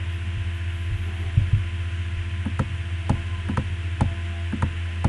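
Steady low electrical hum, with a string of sharp computer mouse clicks starting about a second in, about seven in all, as windows are dragged and placed on screen.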